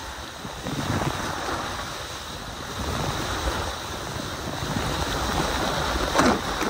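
Water rushing and spraying while sliding fast down a multi-lane water slide, with wind buffeting the microphone; louder splashing near the end.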